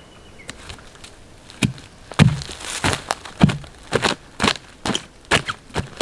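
Hatchet chopping into a rotting pine stump to dig out fatwood: a run of sharp, splintering strikes at about two a second, starting about a second and a half in.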